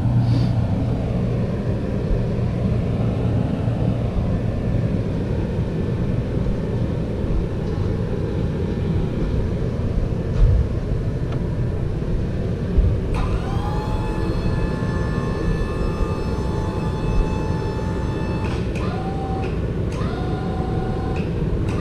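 Steady low rumble with a service truck's electric-over-hydraulic crane working: its pump motor starts with a rising whine about 13 seconds in and runs steadily, then stops and restarts in short runs near the end.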